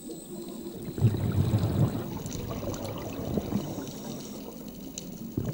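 Underwater bubbling and gurgling of scuba divers' exhaled air, a low, busy, irregular burble.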